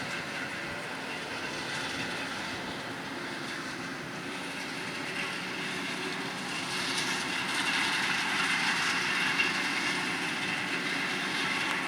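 Heavy harvest machinery, forage harvester and tractors, running steadily with a dense humming whine. It grows louder about seven seconds in, with a brief sharp peak near the end.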